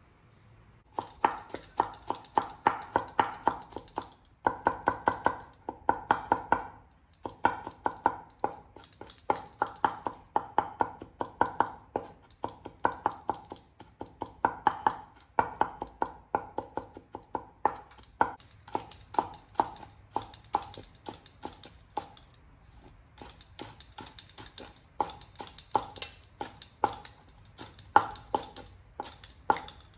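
Cleaver chopping on a wooden cutting board: quick, sharp knocks, several a second, starting about a second in and coming in runs with short pauses, as vegetables and then green onions are cut finely.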